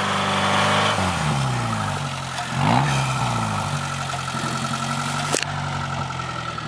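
Suzuki Vitara off-roader's engine working under load in snow, its revs dropping about a second in, then rising and falling again before holding fairly steady. A single sharp click a little after five seconds.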